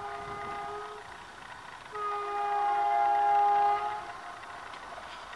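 An Indian Railways WAP-4 electric locomotive's air horn sounding a chord of several tones. A held blast cuts off about a second in, and a second, louder blast of about two seconds follows.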